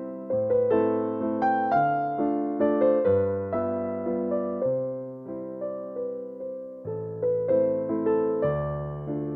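Background music: a gentle solo electric piano melody, notes struck about twice a second and left to fade.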